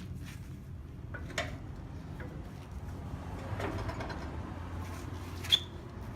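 Scattered light knocks and clicks of metal suspension parts being shifted and worked loose on an old truck's front end, with one sharp metallic clink that rings briefly about five and a half seconds in, over a low steady hum.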